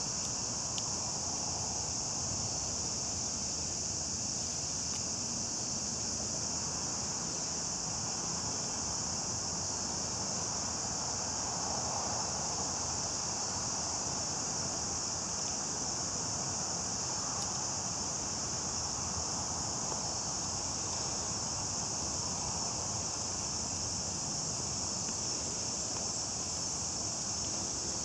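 Chorus of insects singing, a steady high-pitched hiss that doesn't change, over a faint low background hum.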